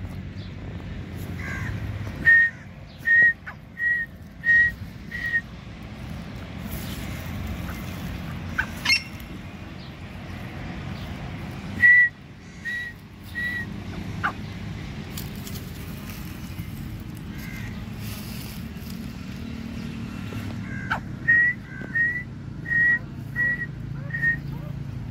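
Teetar (francolin) calling: short, shrill whistled notes all on one pitch, about three-quarters of a second apart, in three bouts: about six notes, then three, then six or seven near the end. A single quick rising whistle sounds between the first two bouts.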